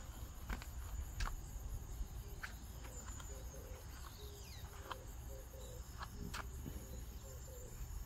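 Insects chirping in a steady, thin, high tone, with a few scattered footsteps on gravelly dirt.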